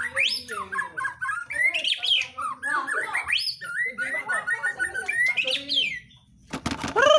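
White-rumped shama (murai batu) singing a rapid, varied song of whistles, rising glides and chattering phrases. After a short pause near the end, a louder buzzy, droning tone begins.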